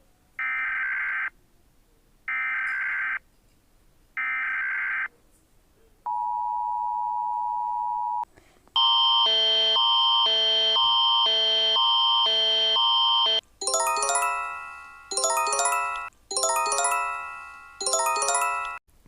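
A homemade Emergency Alert System alarm sequence of electronic tones. Three short buzzy data-like bursts a second apart come first, then a steady tone of about two seconds. A loud pulsing alarm alternates between chords about twice a second, then four quick runs of chime-like notes each fade out.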